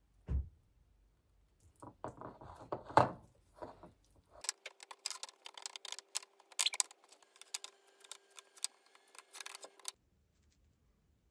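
A dull thump, then a couple of seconds of rustling and clicking. From about four and a half seconds in comes a dense run of small clicks and rattles over a faint steady hum, which stops abruptly near the end.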